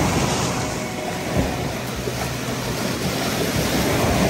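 Waves on a large freshwater lake breaking and washing over a rocky shore, a steady rushing surf with small surges. Wind is heard with it.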